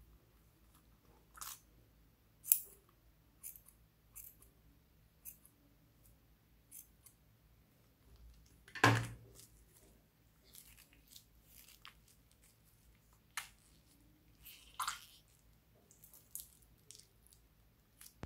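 Scattered sticky crackles and squishes of a slime-coated rubber glove being squeezed, peeled and pulled apart by hand, with one much louder sudden sound about nine seconds in.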